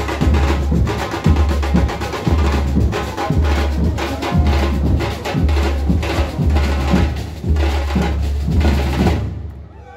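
Batucada drum ensemble playing: deep surdo bass drums beating about once a second under a dense, fast rattle of snare and smaller drums. The whole band stops together near the end.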